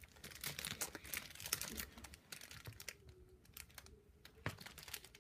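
Clear plastic wrap on slime tubs crinkling faintly in a run of small crackles as fingers pick at it and peel it open, thinning out about three seconds in.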